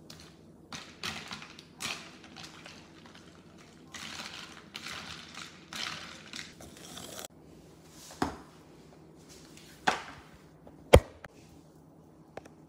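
Ice cubes swishing and clinking in a glass as an iced matcha latte is stirred with a plastic straw, in several uneven bursts over the first seven seconds or so. After that come a few separate sharp knocks; the loudest is about eleven seconds in.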